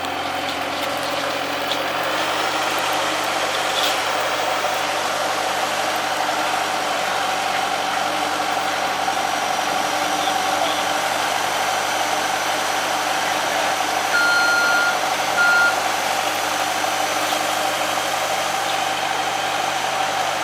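ASV RT-60 tracked skid steer's engine running steadily, with two beeps from the machine about two-thirds of the way through, one longer and one short.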